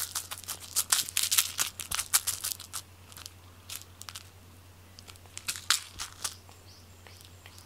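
Cat pawing and clawing at a toy on a quilted cloth: quick crinkly rustles and scratches, dense in the first two seconds or so and sparser after, over a faint steady low hum.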